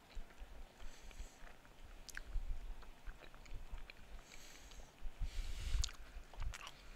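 A person chewing a mouthful of Philly cheesesteak casserole close to the microphone, with irregular small clicks and mouth sounds, loudest about two and a half seconds in and again between five and six seconds.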